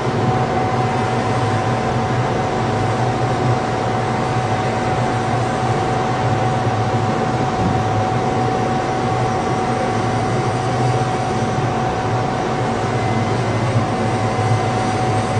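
Ship's deck cargo crane machinery running steadily: a loud low hum with a constant high whine over it.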